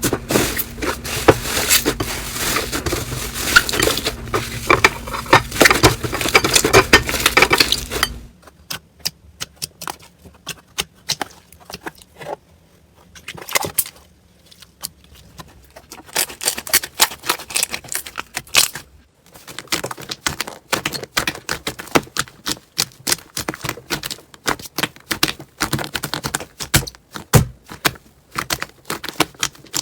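Slime being worked by hand, making many sharp clicks and crackles. About eight seconds in the sound cuts to a quieter clip with sparser clicks, which grow dense again later on.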